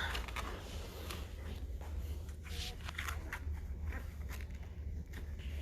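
Soft rustling and scattered small clicks from handling nursing newborn puppies, over a low steady hum.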